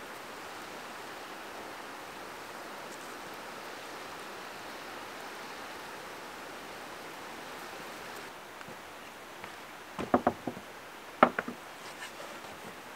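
A steady soft hiss, then, about ten seconds in, two quick clusters of knocks as a pan and a plate are set down on a wooden table.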